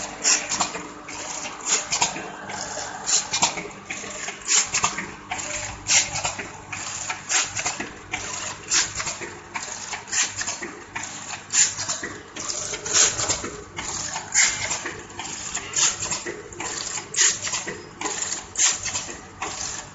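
Vertical form-fill-seal snack packaging machine running while it packs cheese balls. A short clattering stroke repeats about every second and a half, with lighter clicks between.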